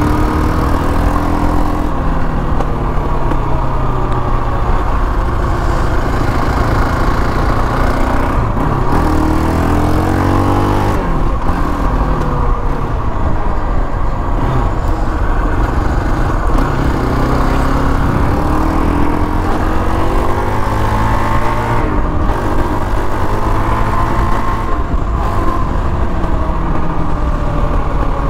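KTM 525 XC quad's single-cylinder four-stroke engine under way, its pitch rising and falling several times as the rider speeds up and eases off.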